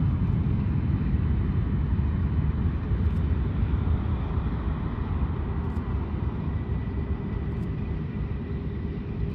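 Twin-engine cargo jet's turbofans at takeoff thrust: a steady, distant rumble during the takeoff roll and liftoff, slowly fading as the jet climbs away.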